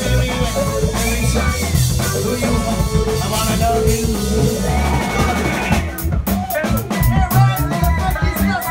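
Live funk band playing a soul-funk jam, with organ, electric bass, guitar, drum kit and a singer at the microphone. About six seconds in, the dense full-band sound thins out and sharp drum hits come to the fore.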